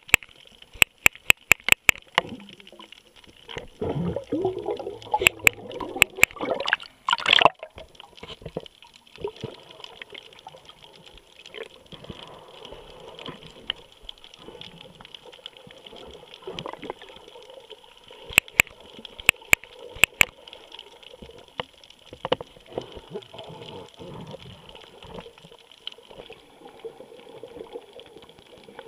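Clicks of the Drift HD Ghost action camera taking still images while recording underwater, in quick runs of several clicks near the start, about five to six seconds in, and again around eighteen to twenty seconds. Between them, water noise against the underwater housing, loudest from about four to seven seconds in.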